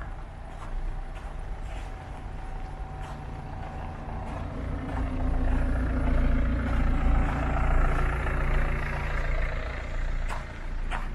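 A motor vehicle's engine passing on the street: its hum swells from about four seconds in, is loudest in the middle, and fades away near the end.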